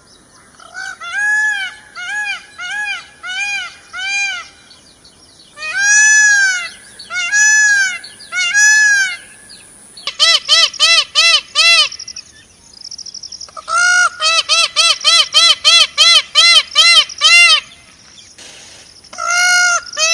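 A bird giving loud, repeated honking calls, each a short arched note, in runs that speed up to about four or five calls a second in the second half. A faint steady high-pitched tone runs underneath.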